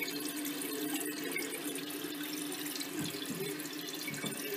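Water running steadily into a toilet tank through its brass ballcock fill valve as the tank refills: an even hiss with a faint steady hum.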